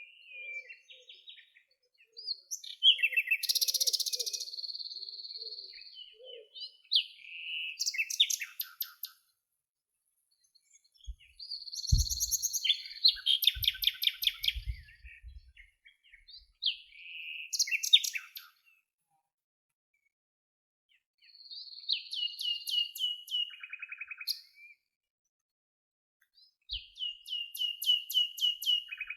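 A songbird singing in separate bouts a few seconds long, each mixing short falling whistles with rapid trills and repeated notes, with silent pauses between bouts. A few low thuds come about halfway through.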